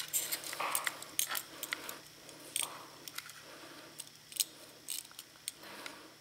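Scattered light clicks, taps and rustles of wires, solder and a soldering iron being handled at a small DC motor's terminals while soldering the leads on.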